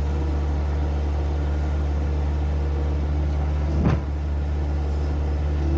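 A vehicle engine running steadily at a constant speed, with a single thump about four seconds in.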